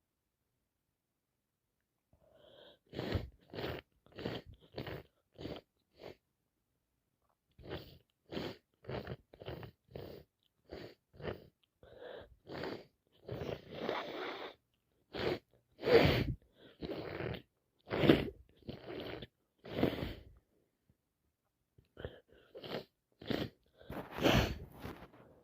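A woman with a head cold sneezing over and over in short, quick bursts, about two a second, with a couple of brief pauses between runs. Some sneezes are louder than the rest.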